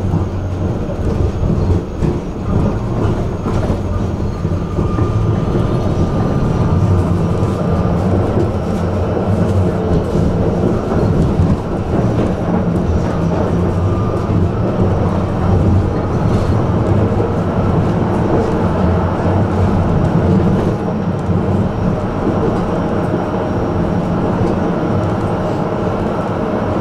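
Tram running along its track, heard from on board: a steady rumble of wheels on rails with scattered clicks and knocks, and a faint thin whine for a few seconds about four seconds in.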